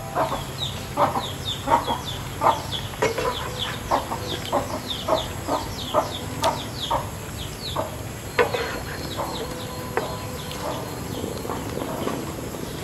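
Birds calling: short low clucks about twice a second under many quick, high, falling chirps, thinning out in the last few seconds.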